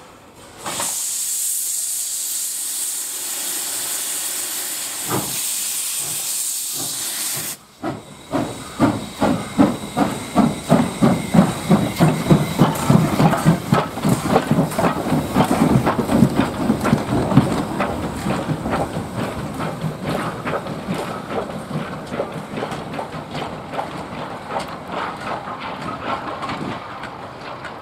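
Er-class 0-10-0 steam locomotive getting under way. A loud, steady hiss of steam starts about a second in and cuts off suddenly, then the locomotive's exhaust chuffs in a regular beat as it pulls away, the beats growing fainter toward the end.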